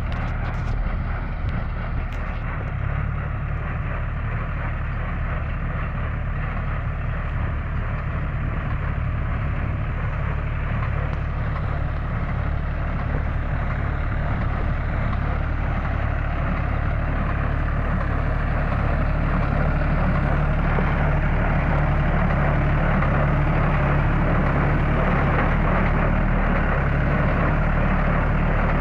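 Baletek 69 square straw baler at work, driven by an engine running steadily. The sound grows slightly louder in the second half.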